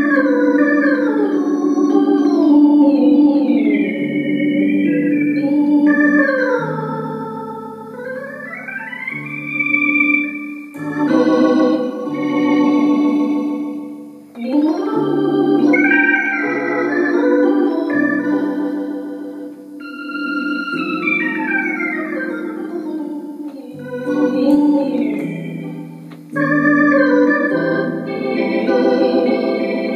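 Bugari Evo chromatic button accordion playing a tune in a theatre-organ voice, with quick runs sweeping up and down the keyboard over held bass notes.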